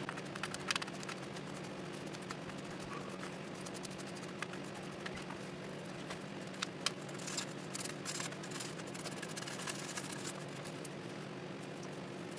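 A small brush scrubbing flux off a BGA chip in a tray of isopropyl alcohol: faint scattered scratchy ticks and patter, over a steady low hum.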